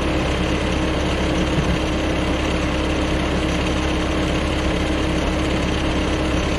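The engine of the fork-equipped lifting machine holding the engine hoist chain, idling steadily with an unchanging hum.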